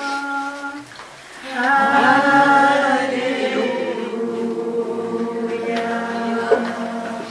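Slow worship singing: voices holding long notes. It breaks off briefly about a second in, then the voices come back in on further long held notes.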